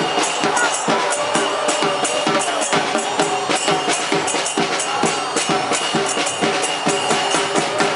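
Football supporters' section chanting together over a drum section of bass drums and smaller drums, keeping a steady fast beat.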